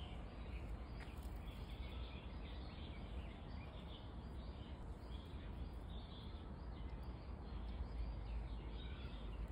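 Outdoor ambience: a steady low rumble with faint, short bird chirps scattered throughout.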